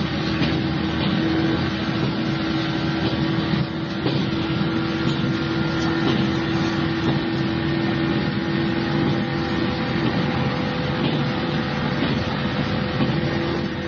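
Inside a carriage of an electric overnight local train in motion: a steady rumble of wheels on the rails with a constant hum, as heard on an old cassette-tape recording.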